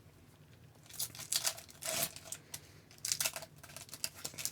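Trading-card pack wrapper crinkling and rustling as cards are opened and handled: irregular short crackles starting about a second in.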